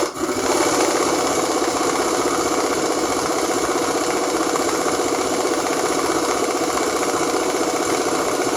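A power tool steadily running the forcing screw of a harmonic balancer puller on a V8 crankshaft, held at an even, moderate pace with a fast mechanical rattle to it, easing the balancer off the crank snout.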